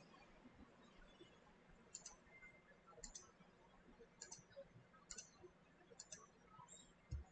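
Faint clicks of a computer mouse, about six of them roughly a second apart, over low room hum.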